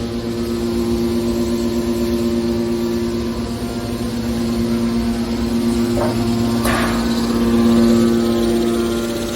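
Hydraulic aluminum baler's motor and pump running with a steady hum, with a brief clatter about two-thirds of the way through.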